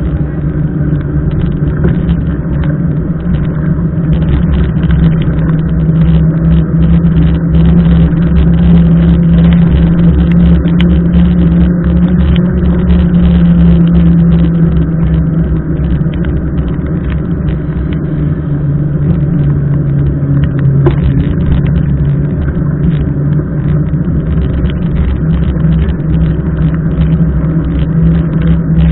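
Loud, steady low rumble of wind buffeting the camera microphone, mixed with tyre and road noise from a mountain bike being ridden.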